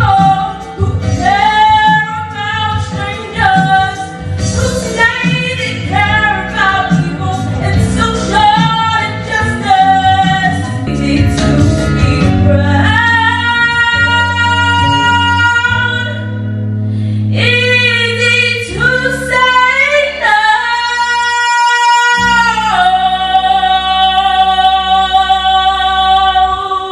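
A woman singing solo over instrumental accompaniment: short, quick phrases at first, then long held notes through the second half.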